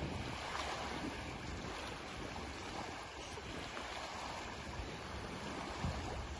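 Wind gusting on the microphone over the steady wash of small waves on open lake water.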